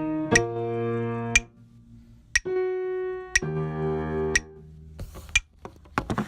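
Background music: held chords that change about once a second over a steady tick, one tick a second. The chords stop about four seconds in, leaving only faint ticks.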